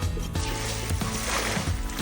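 Background music with a steady beat, with a hissing noise joining it about half a second in.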